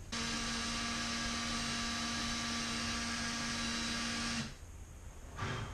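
Electric drill running at a steady whine as it bores a quarter-inch hole into a fiberglass-coated boat console, spun in reverse to get through the fiberglass. It stops suddenly about four and a half seconds in.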